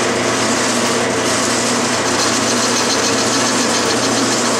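12-inch Clausing metal lathe running steadily, its three-jaw chuck spinning, while the tool takes a facing cut across the end of a casting.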